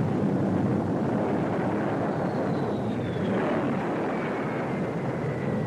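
Jet fighter engine noise, a loud steady rush with a high whine that falls in pitch from about two seconds in.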